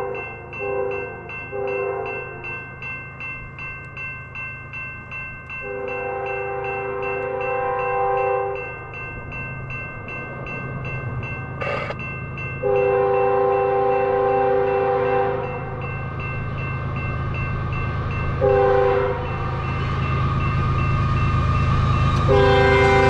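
An approaching CP Rail diesel freight locomotive sounds its multi-note air horn for the crossing: a few short toots, then the long, long, short, long grade-crossing signal. A level-crossing bell rings steadily underneath, and the locomotive's low rumble grows louder as it nears.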